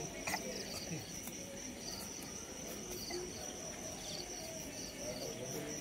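Crickets calling in the dark: a steady high trill, with short pulsed chirps repeating a little more often than once a second over it.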